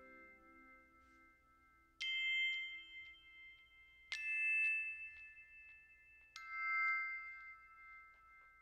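Three bell-like chime notes struck about two seconds apart, each ringing on and slowly fading, as in a short piece of closing music.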